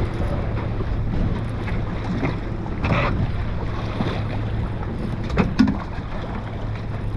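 Small fishing boat on the ocean: a steady low engine hum under wind buffeting the microphone and water noise, with a few sharp knocks about five and a half seconds in.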